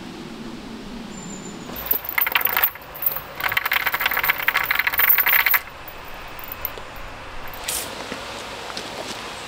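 Metal chain rattling and clinking as it is handled and hung on a wooden campfire tripod. It comes in two jangling bursts, a short one about two seconds in and a longer one from about three and a half to five and a half seconds, followed by a few faint clicks.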